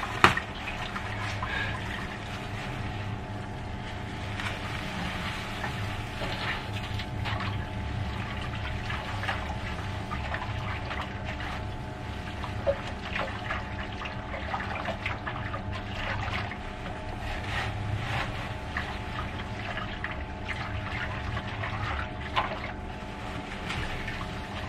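Crushed malt grain pouring from a plastic bag into a mash tun of hot strike water, a steady pouring hiss with crackles of the bag rustling, over a steady background hum.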